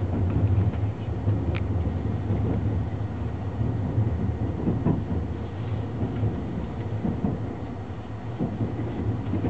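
Sunrise Seto/Izumo sleeper train, a 285 series electric multiple unit, running, heard from aboard: a steady low rumble with a few light knocks from the wheels over rail joints.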